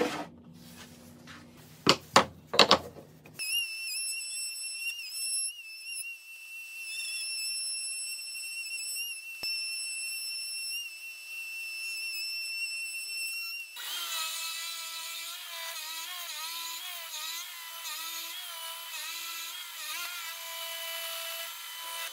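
A few sharp wooden knocks, then a router spinning a 9mm roundover bit with a steady high whine as it shapes the edge of a merbau piece. About 14 s in, a drill boring with an 18mm Forstner bit takes over, its lower whine wavering in pitch as the bit cuts.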